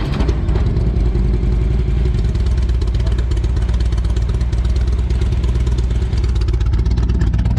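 Motorcycle engine idling steadily just after starting, with an even firing pulse. The bike has an intermittent electrical fault, which the mechanic puts down to the ECM or a loose wire.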